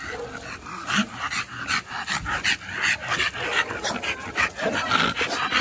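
Dog panting rapidly, about four quick breaths a second.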